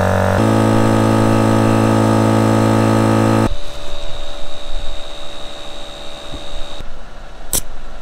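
Twin-cylinder 12-volt tire-inflation air compressor running steadily with a deep, even hum while airing up the tires; it stops abruptly about three and a half seconds in. A rougher, quieter noise with a thin high whine follows, then a sharp click near the end.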